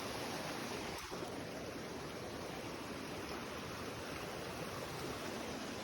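Steady rush of falling water from a waterfall, an even hiss with no pauses.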